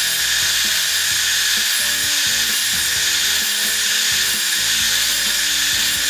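Sliding miter saw running at full speed, its blade set shallow by the depth stop and cutting a rabbet into a board: a steady, loud cutting noise.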